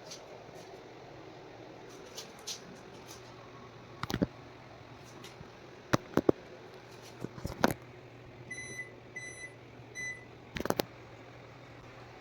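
Three short electronic beeps in quick succession, typical of a washing machine's control panel responding to button presses, over a faint steady low hum. Several sharp clicks and knocks come before and after the beeps.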